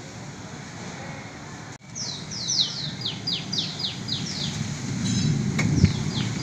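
Steady wind-and-rain noise from a storm, breaking off briefly about two seconds in. Then a bird calls a quick run of falling chirps, about five a second, with a shorter run near the end as gusts of wind grow louder.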